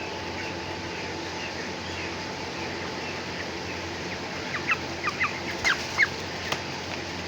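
Chicks peeping, faintly at first, then a burst of about eight sharp, high peeps a little over halfway through, over a steady mechanical hum. A single sharp click comes near the end.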